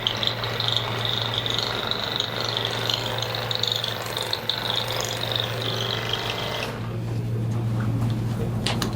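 A steady mechanical rattling buzz that cuts off suddenly about two-thirds of the way through, followed by a couple of faint clicks.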